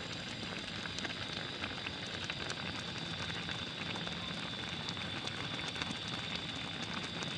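Pot of spicy noodle soup bubbling on the heat: a steady hiss full of small pops, with a steady high whine underneath.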